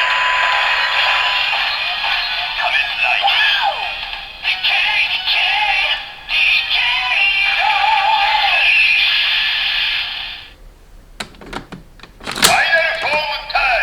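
DX Kamen Rider Zi-O transformation toy playing its Hibiki Armor sound effects: electronic music and a synthesized voice from a small, tinny speaker. The sound cuts off about two-thirds of the way through, a few sharp clicks follow, and the toy's audio starts again near the end.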